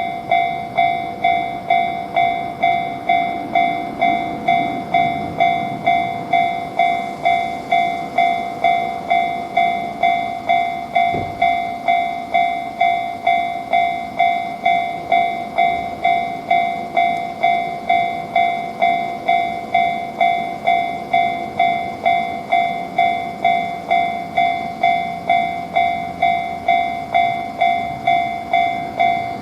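Japanese railway level-crossing warning bell ringing its steady 'kan-kan', a little under two strikes a second, with a faint low rumble in the first several seconds.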